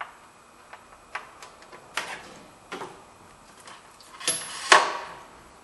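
Scattered clicks and knocks of hands working a parking brake cable through the underbody of a minivan, with a louder clatter a little after four seconds.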